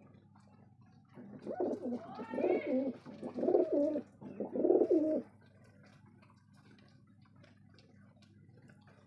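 Domestic pigeons cooing: four low, bending coo phrases starting about a second in and stopping a little past the middle. Faint ticks of beaks pecking grain are heard around them.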